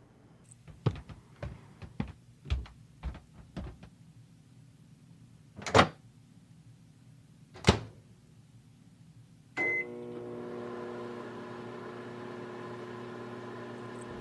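Light taps and clicks, then two louder thunks, then a short beep as a microwave oven starts and runs with a steady hum, heating a frozen lasagna.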